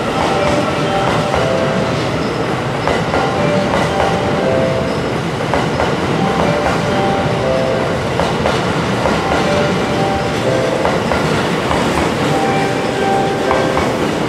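E001 series 'Train Suite Shiki-shima' train pulling out and rolling past along the platform: a loud, steady rumble of wheels on rails, with brief whining tones now and then.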